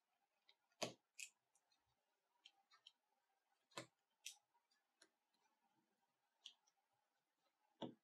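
Faint clicks and taps of a small precision screwdriver being set into and turning the screws of a laptop's bottom cover. Three sharper knocks come about three seconds apart, each followed a moment later by a higher click.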